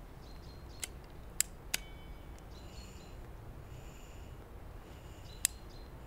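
Sharp clicks of a tobacco pipe being lit by hand: one a little under a second in, two more close together around a second and a half, and a last one near the end, over a faint low background.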